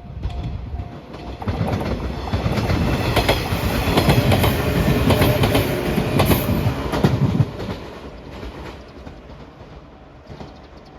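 A loud passing rush of noise with fast clattering. It builds over the first two seconds, holds, then drops off fairly suddenly about seven and a half seconds in to a fainter rumble.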